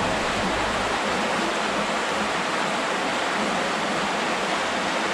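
Steady rushing of a creek's flowing water, close to the microphone.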